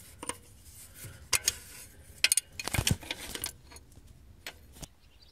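Irregular metallic clicks and clinks of a 16 mm wrench tightening an alternator mounting bolt, loudest around the middle.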